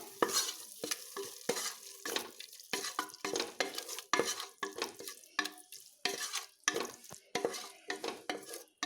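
Ladle stirring frying onion-tomato masala with freshly added yogurt in a pressure cooker: quick, repeated scraping strokes against the metal pot, two or three a second, over a sizzle.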